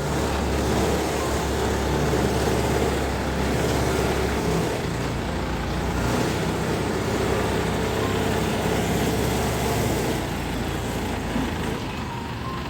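Diesel engine of a Hydra pick-and-carry crane, revving up at the start and then running steadily at raised speed. It eases slightly about ten seconds in.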